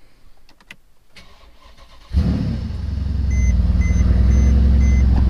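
A Mercedes CLS 63 AMG's V8 is cold-started about two seconds in after sitting for over a month. It catches at once with a loud flare, then settles into a steady idle, while a dashboard warning chime beeps about twice a second.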